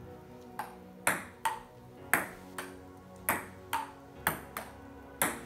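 A table tennis rally: the plastic ball clicks sharply off the paddles and table about eleven times, roughly two hits a second.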